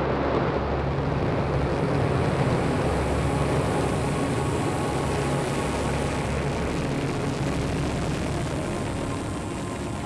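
Kosmos-3M rocket engine noise at liftoff: a steady, dense rushing noise that fades slowly over the last few seconds as the rocket climbs away.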